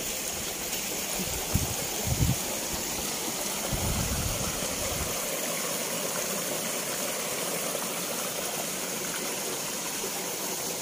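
Small stream rushing and splashing over rocks in a little cascade, a steady even rush of water. A few soft low thumps sound in the first few seconds.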